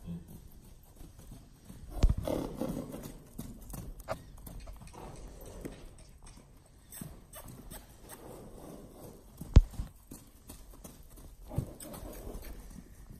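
A horse moving loose at a trot and canter on soft arena footing: irregular dull hoofbeats, with a few sharp knocks, the loudest about two-thirds of the way through.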